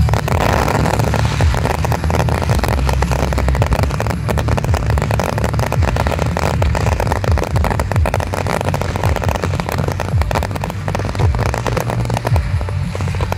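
Fireworks going off in a dense barrage: rapid, continuous crackling and popping over a steady low rumble.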